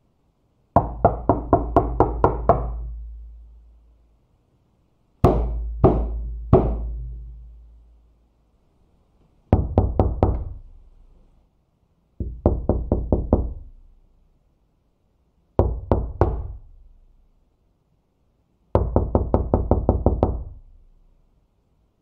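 Knuckle knocks on a wooden panelled door in six separate bursts: a quick run of about nine knocks, then three slow, evenly spaced knocks, then shorter runs of four to six, and a final quick run of about nine near the end. Each burst rings on with a low, hollow boom.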